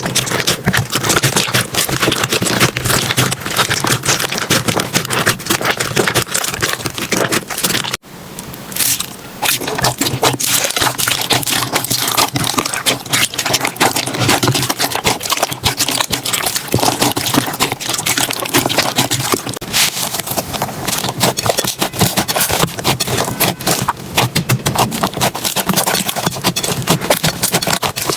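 Slime being pressed, poked and stretched by hand, making dense crackling and clicking. The sound breaks off briefly about eight seconds in, then goes on the same way.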